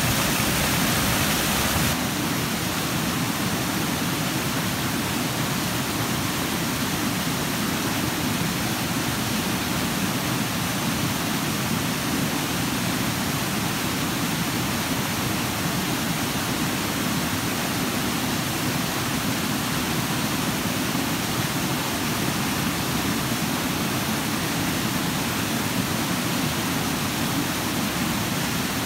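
Steady rush of a small forest waterfall and stream pouring over rocks. It is a little brighter at first and slightly duller from about two seconds in.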